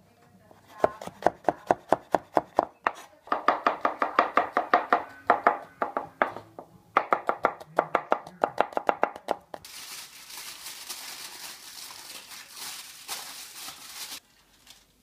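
Chef's knife mincing garlic on a wooden cutting board, in quick runs of strokes about five a second with two short pauses. About ten seconds in, this gives way to aluminium foil crinkling as it is handled, lasting about four seconds.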